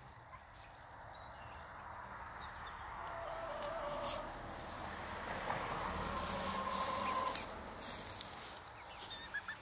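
Young hens making a few soft, drawn-out calls while they forage, with a few light clicks from scratching and pecking in the soil.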